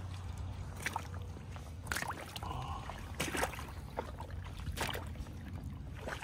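Boots crunching and splashing through a shallow meltwater puddle over ice, in uneven steps about once a second, over a steady low hum.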